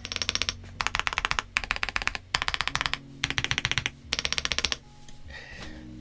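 Typing on a mechanical keyboard: rapid keystroke clatter in several short bursts, stopping about five seconds in.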